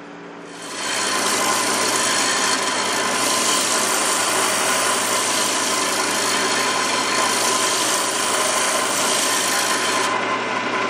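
Lathe gouge cutting a spinning wooden bowl, a steady scraping hiss of shavings over the lathe motor's hum. The cut starts about a second in and stops near the end, leaving only the hum.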